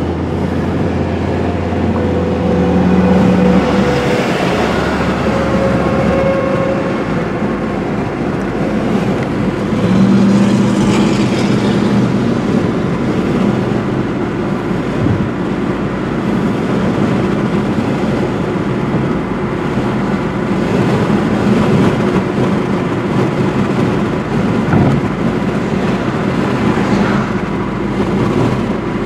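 Car driving along a road, heard from inside the cabin: steady engine and tyre noise.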